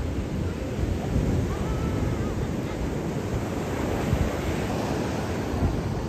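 Surf washing onto the beach, with wind buffeting the microphone in uneven low gusts.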